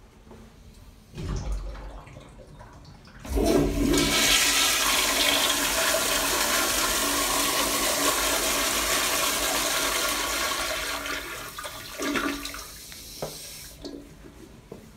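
Toilet flushing: a dull thump about a second in, then the loud rush of the flush starts about three seconds in, holds for several seconds and tapers off near the end.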